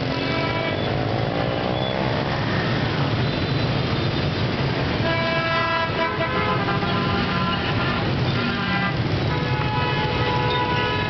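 Dense street traffic of motor scooters and a city bus, many engines running together, with horns tooting in clusters about halfway through and again near the end. In the first couple of seconds one engine rises in pitch as it accelerates away.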